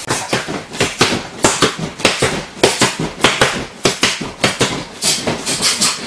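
Boxing gloves smacking against a coach's open hands in a quick, irregular run of sharp slaps, several a second.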